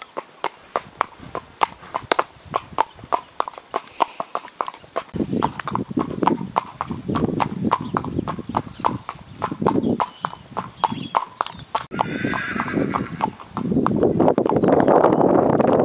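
Quarter horse's hooves clip-clopping on wet tarmac in a steady, even rhythm of about four beats a second. From about a third of the way in, a rushing noise rises under the hoofbeats and is loudest near the end.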